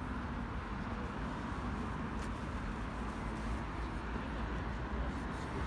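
Steady hum of road traffic with a low rumble underneath.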